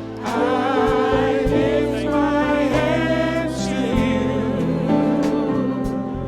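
Praise team singing a slow gospel song with voices and instrumental backing, held notes with vibrato.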